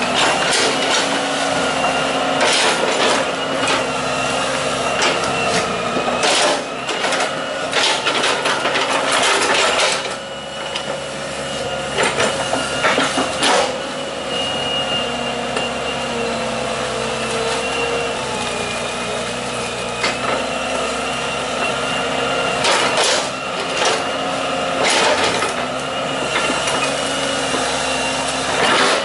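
Hitachi EX120 hydraulic excavator's diesel engine running steadily under load with a high whine, broken by several clusters of knocks and clanks as the bucket digs and dumps mud.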